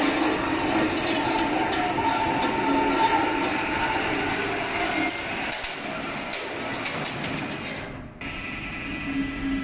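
Steel wire mesh roll being slid off the mandrel of a mesh rolling machine: a steady mechanical rumble with metal rattling and scattered clicks. The noise cuts off abruptly about eight seconds in, leaving a quieter steady machine hum.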